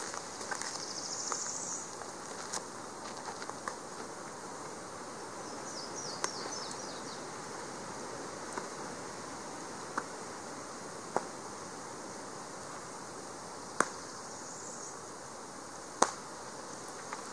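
Baseball smacking into leather gloves during a game of catch: a sharp pop every few seconds, the loudest two near the end. Small birds chirp and trill in the background.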